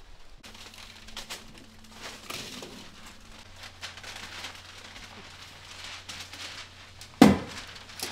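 Plastic house wrap rustling and crinkling with scattered light taps as it is handled and fastened, then one loud hammer blow about seven seconds in.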